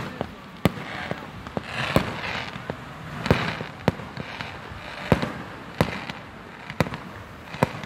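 Aerial fireworks shells bursting overhead: a run of sharp bangs, about one a second.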